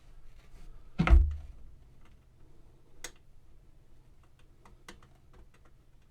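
Handling noise from work on a guitar amp's speaker and cabinet: scattered small clicks and taps, one loud dull thump about a second in, and a sharper click about three seconds in.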